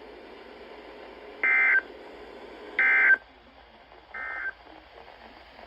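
Emergency Alert System end-of-message code: three short bursts of SAME digital data tones, evenly spaced about a second and a half apart, the last one quieter, over a faint radio hiss. They mark the end of the alert broadcast.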